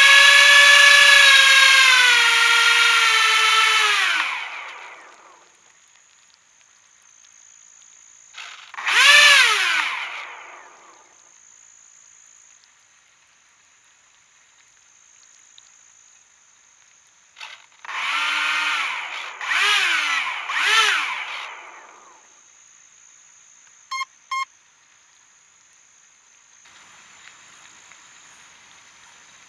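The FPV boat's twin brushless motors (Racerstar 2205 2300kv) with propellers whining: they wind down and fade over the first few seconds, then are revved in short bursts, once and then three times in quick succession, with the boat stuck fast in thick algae. Two short beeps come near the end.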